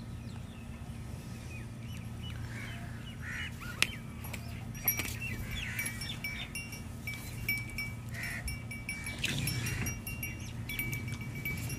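Farmyard ambience: birds chirping and calling over a steady low hum, with two sharp knocks about four and five seconds in.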